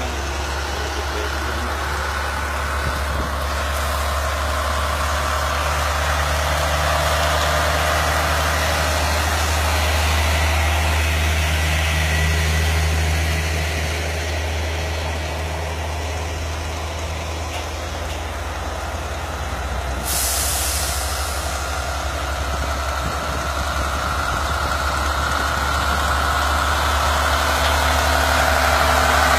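Heavy diesel truck engines idling with a steady low rumble. About twenty seconds in, a short hiss of compressed air, an air brake releasing.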